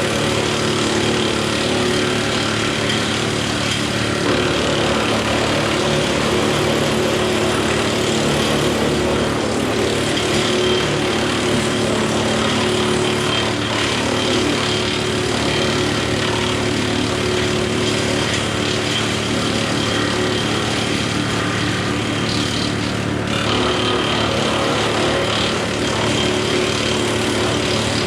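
John Deere 4066R tractor's diesel engine running steadily at a constant speed, with an even drone and no revving.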